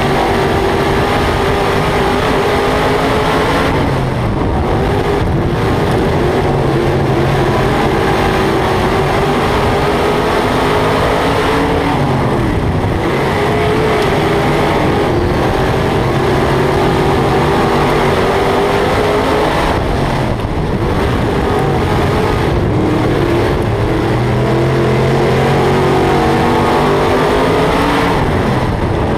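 Dirt modified race car's V8 engine at racing speed, heard from on board: the revs dip going into each turn and climb again down the straights, about every eight seconds.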